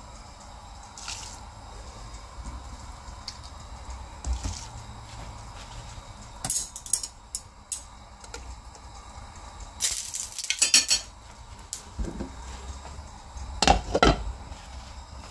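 Pot-and-pan handling at a gas stove: crackly rustling and light clinks as a block of instant noodles goes into a pot of water and is pushed about with chopsticks, then a glass lid set down on the pot with two clanks near the end.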